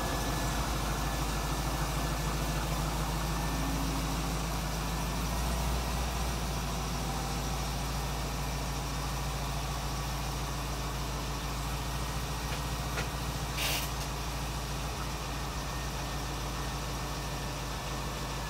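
Chevrolet Corvette Z06's LS6 V8 idling steadily through long-tube ARH headers and the stock mufflers.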